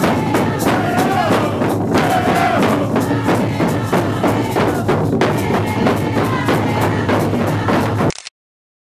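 Many hand-held hide frame drums beaten together in a steady beat, with a group of voices singing a chant over them. The sound cuts off abruptly about eight seconds in.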